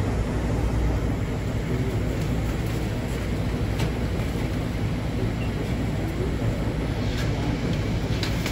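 Steady low rumble of engine and airflow noise inside the cabin of a Boeing 737-800 airliner, with a few faint clicks near the end.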